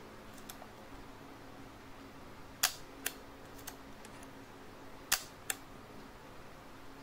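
Compur leaf shutter of a Rolleicord twin-lens reflex camera being worked by hand: a sharp mechanical click followed about half a second later by a lighter one, about two and a half seconds in and again about five seconds in.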